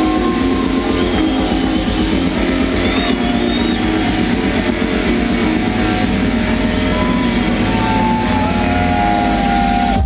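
House/techno music from a DJ set over a club sound system: a fast, steady low-end pulse under sustained high synth tones that hold and slide in pitch. Right at the end the track drops into a heavier bass-and-kick section.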